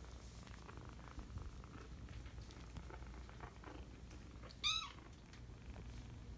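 Five-week-old kittens purring steadily, with faint rustling on the blanket. About two-thirds of the way through, one kitten gives a single short, high-pitched mew, the loudest sound.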